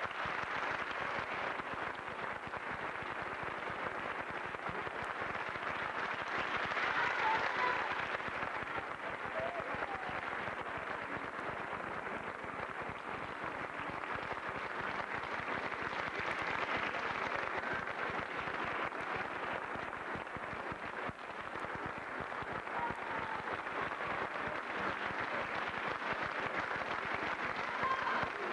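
Audience applauding steadily, a dense clatter of many hands clapping, swelling louder about seven seconds in.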